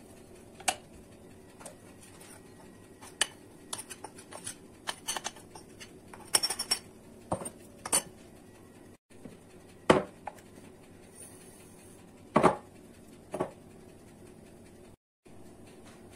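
Scattered clinks and knocks of china plates and a bowl being set on and lifted off a plastic digital kitchen scale, with a spoon scraping a plate as a dry ingredient is spooned on. The loudest knocks come about ten and twelve and a half seconds in, and the sound cuts out briefly twice.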